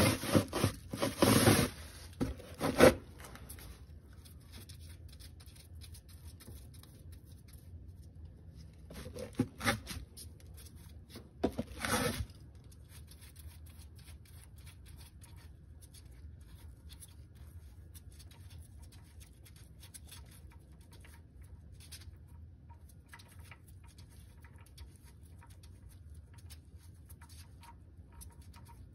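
Plastic oil drain pan dragged and shuffled into place under the car in two short bouts of scraping and rustling, the first the loudest. Then only faint scattered ticks while the oil drain plug is unthreaded by hand.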